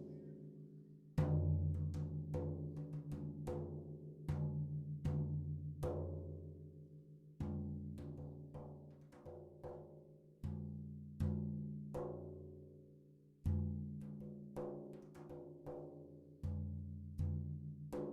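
Closing music: slow, low struck notes that ring and fade, a new note about every half second, with a deeper, louder note about every three seconds.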